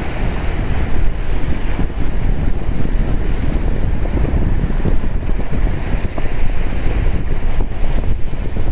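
Strong wind buffeting the microphone, a loud, gusty low rumble.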